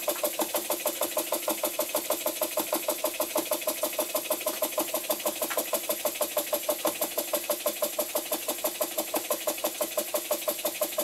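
Small vintage model steam engine with a single-acting cylinder, fed by a vertical brass boiler, running steadily in steam: an even, rapid beat of chuffs, several a second, that keeps the same pace throughout.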